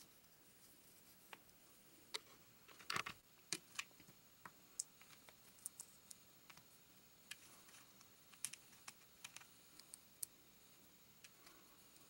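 LEGO plastic pieces being handled and pressed together: faint, irregular clicks and snaps, with a short cluster about three seconds in.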